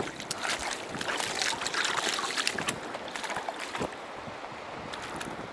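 A hooked male pink salmon thrashing and splashing in shallow water over pebbles, a run of quick splashes over the first few seconds that then thin out, over the steady rush of the river.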